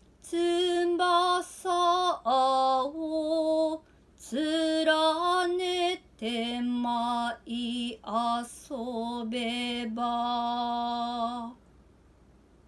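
Noh sutai chant sung unaccompanied by a woman's solo voice: long held syllables with slow, wavering pitch steps, broken by short pauses for breath, the later phrases pitched lower. The chant stops about a second before the end.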